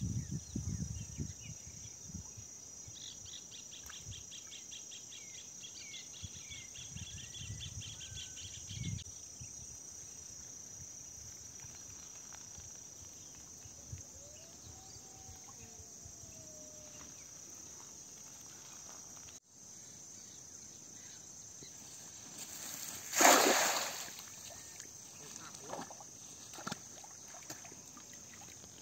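A cast net lands on pond water with one loud splash lasting about a second, about three-quarters of the way in. Steady insect trilling runs throughout, with bird chirps in the first several seconds.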